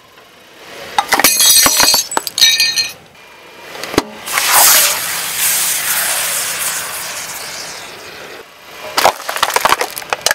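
A car tyre crushes a plate of foil-wrapped Kinder Surprise eggs, giving a second or two of crackling and cracking. About four seconds in, an aerosol can of shaving foam bursts with a sharp crack and then hisses, fading over several seconds. Near the end comes another run of crunches and squelches as foil-wrapped ice-cream bars are crushed.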